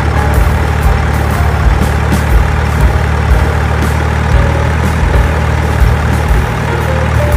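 Heavy truck engine running steadily with a low rumble, the engine sound given to a miniature remote-control cargo truck as it drives.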